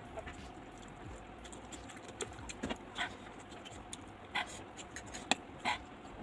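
Close-miked eating sounds: chewing and slurping of instant noodles with scattered wet smacks and short clicks of a metal fork in the bowl, the sharpest click a little after five seconds in.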